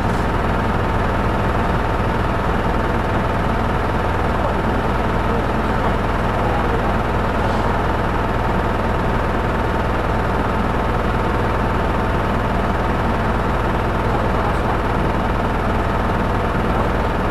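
Hino Poncho small diesel bus running, heard from inside the passenger cabin: a steady drone of engine and road noise with a thin, steady high whine.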